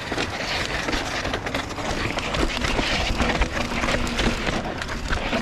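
Mountain bike rolling down a rough dirt trail: tyres crunching over dirt and rock under a steady rushing noise, with many small knocks and rattles from the bike.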